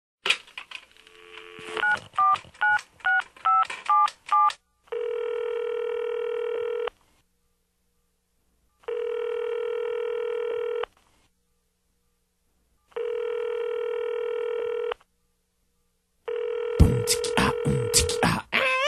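Touch-tone telephone dialing: seven quick keypad beeps, then the ringback tone of the call ringing through three times, two seconds on and two seconds off. Near the end a fourth ring is joined by a hip-hop style beat.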